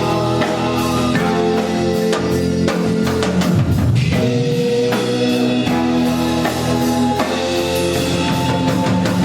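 A band playing rock-style music at a sound check, with drum kit and guitar. A low note swoops down and back up about a third of the way through.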